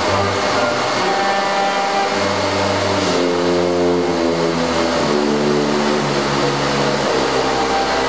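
Vacuum cleaners running with a steady whooshing drone, played as instruments under a wind band that holds sustained chords shifting to new notes every second or so.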